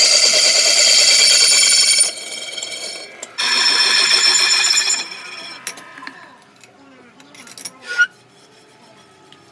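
Drill press twist drill boring a bolt hole in a truck brake drum's flange, cutting with a loud, high-pitched ringing screech. The screech stops about two seconds in, comes back for a second and a half, then dies away; a sharp click near the end.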